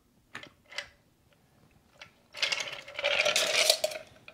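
A stirred cocktail strained from a glass mixing glass through a metal strainer onto ice cubes in a rocks glass: a few light clinks, then about a second and a half of louder rattling ice and splashing liquid against the glass past the middle.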